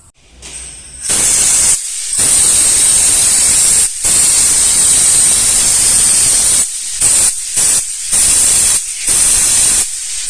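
Pressurized jet hissing, used to clean clutch and gearbox parts: one long blast starting about a second in with two brief breaks, then several short on-off blasts near the end.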